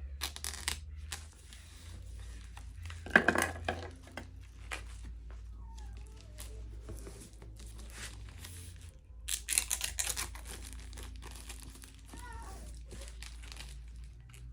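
Packaging being unwrapped by hand: irregular rustling and crinkling, with louder bursts of crackling about three seconds in and again near ten seconds.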